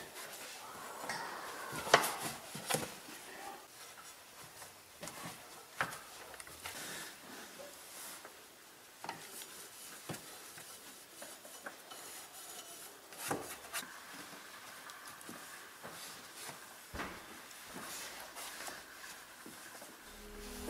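Microfibre towel rubbing and wiping a Porsche Cayenne Turbo's chrome exhaust tip, with scattered light clinks and knocks of hand and tip against metal. A sharp clink about two seconds in is the loudest.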